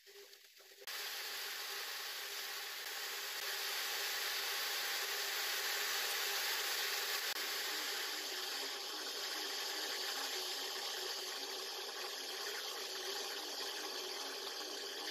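Steady hiss of background noise with a few faint steady hum tones, starting abruptly about a second in.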